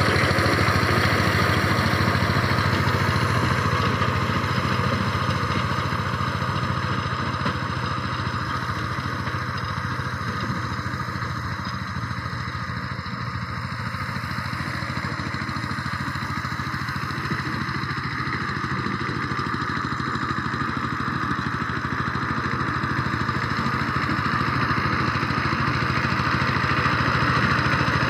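Power tiller's single-cylinder diesel engine running steadily as its rotary tines work dry soil. It grows fainter in the middle as the tiller moves away, then louder again as it comes back.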